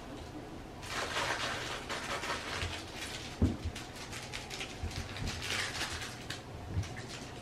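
French Bulldog puppies playing with plush toys on a fleece blanket: soft rustling and scuffling of paws and fabric, with a sharp thump about three and a half seconds in and a smaller one near the end.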